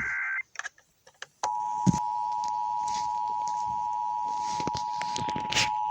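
The last moment of an Emergency Alert System SAME data burst, then after a brief near-silent gap the EAS two-tone attention signal (853 and 960 Hz together) sounding steadily from about a second and a half in, announcing the required monthly test.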